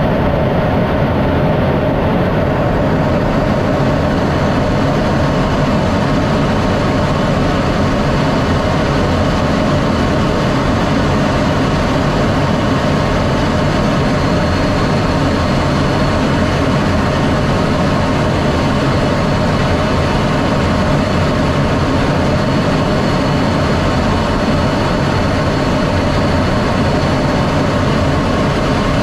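F-16D Fighting Falcon jet noise, loud and unbroken, with the engine running steadily throughout. A faint steady high tone joins in about halfway through.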